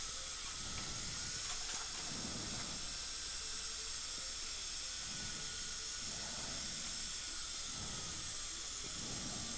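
Steady high hiss of dental operatory equipment, with a faint wavering whistle under it.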